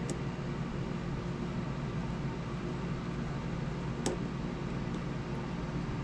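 Steady low mechanical hum with a background hiss, and a single small click about four seconds in.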